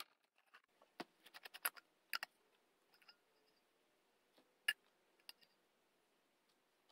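Scattered light clicks and taps of plastic PVC pipe fittings and a primer can being handled on a workbench, with one sharper knock about two-thirds of the way in.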